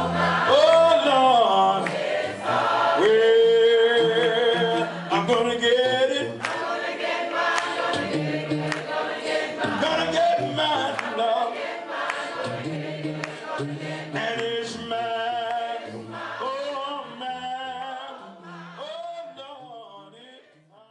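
Gospel song with a choir singing, fading out over the last several seconds until it stops.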